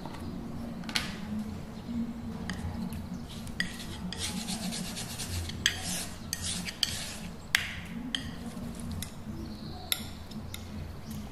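Metal palette knife scraping and spreading oil paint across a wooden palette, in bursts of rasping strokes, with several sharp clicks of metal or tubes against the wood.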